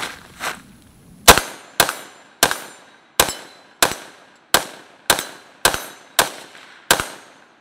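A 5.56 Galil ACE rifle with a 16-inch barrel firing ten rapid semi-automatic shots, a little under two a second, each with a short ringing tail, after two lighter clacks of the rifle being handled. The string runs the magazine empty, with the bolt locking back on the last round.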